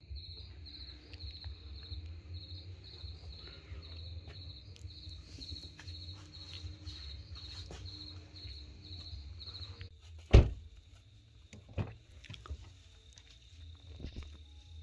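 Night insects chirping: a high, evenly pulsed chirp about three times a second, over a steady low rumble. About ten seconds in there is a loud thump, after which a steady high insect trill carries on.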